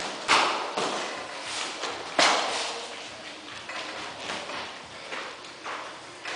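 Punches and kicks landing on boxing gloves and shin pads in kickboxing sparring: a string of slaps and thuds at irregular intervals, the loudest about two seconds in, echoing in the large hall.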